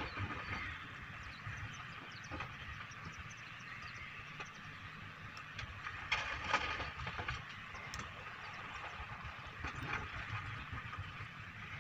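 Excavator diesel engine running with a steady low rumble and hiss, with scattered clicks and knocks and a louder spell of clatter about six seconds in.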